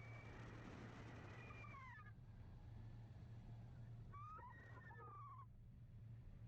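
Hang glider's rigging wires whistling faintly in the airflow: wavering tones that bend in pitch, first over a rush of air in the first two seconds, then again about four to five seconds in.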